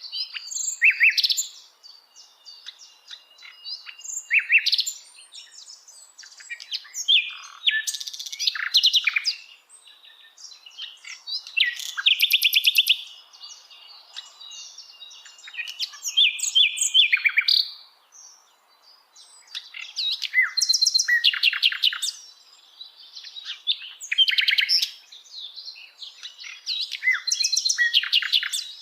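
Sikatan londo flycatcher singing: repeated varied phrases of rapid high chirps and buzzy trills, each lasting a second or two, with short pauses between them.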